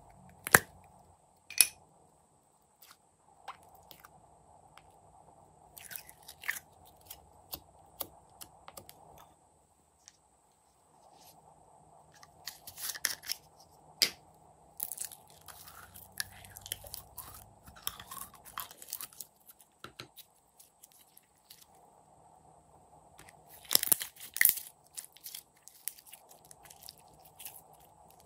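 Slime being handled by hand: scattered bursts of sticky crackling and popping. Two sharp plastic clicks come near the start as a makeup case is opened.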